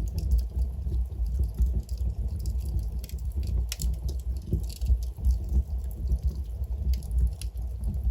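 Wood logs burning in a fireplace: a steady low rumble of the flames with frequent sharp crackles and pops, a few louder pops about halfway through.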